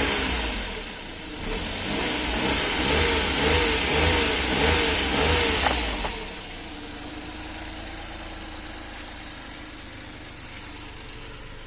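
Suzuki DA64 minivan's K6A three-cylinder engine revved in quick repeated throttle blips, each rising and falling in pitch and dropping straight back, then settling to a steady idle about six seconds in. It is being run up as a test after new ignition coil packs were fitted to cure a misfire and loss of power.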